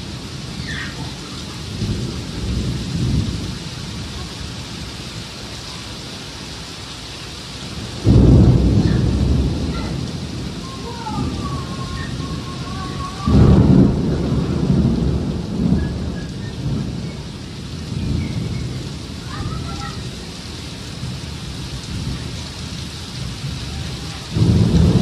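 Heavy tropical rain pouring steadily, with thunder: sudden loud low rumbles about eight seconds in, again about five seconds later, and once more near the end, each fading over a few seconds.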